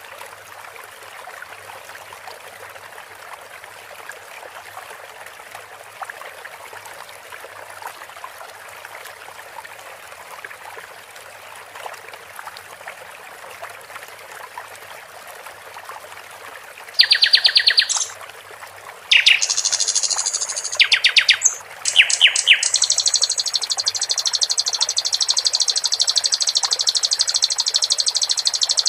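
Trickling water runs steadily, and about two-thirds of the way in a sikatan londo starts singing over it. It gives loud bursts of rapid repeated notes, then goes into one long, fast, continuous trill that lasts to the end.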